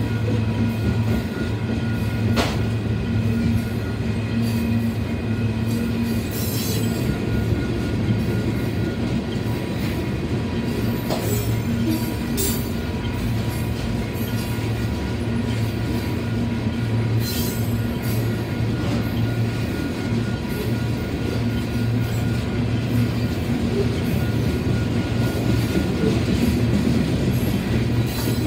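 Loaded freight train of covered hopper cars rolling past, a steady rumble of steel wheels on rail with a few short squeals scattered through.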